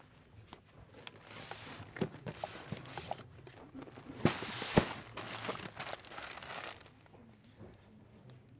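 Plastic-wrapped packets of dried rice vermicelli crinkling as they are handled and taken from cardboard boxes, with a few sharp knocks. The rustling is loudest about halfway through and dies down near the end.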